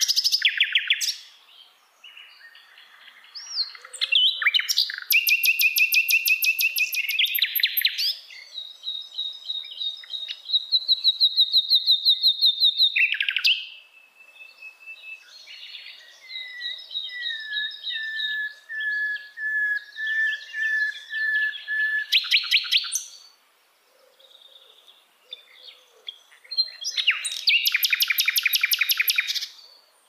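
Common nightingale singing a varied song of separate phrases: fast rattling runs of repeated notes, and a long series of lower, clear piping notes in the middle.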